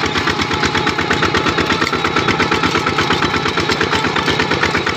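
Kubota single-cylinder diesel two-wheel walking tractor running steadily with a rapid, even beat as it pulls a loaded cart along a dirt track.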